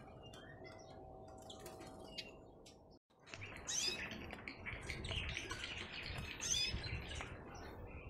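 Small cage birds, canaries and finches, giving short high chirps, several in the second half, over rustling handling noise while a canary is caught. The first few seconds hold only a faint steady hum with a few weak chirps.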